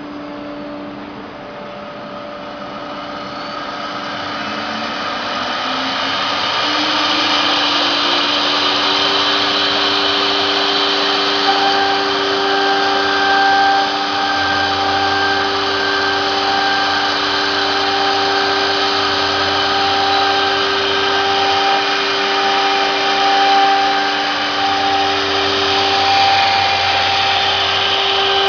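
CNC router spindle spinning up, a whine rising in pitch over the first several seconds, then running steadily as the machine starts cutting, over the steady noise of the dust collector and vacuum pump.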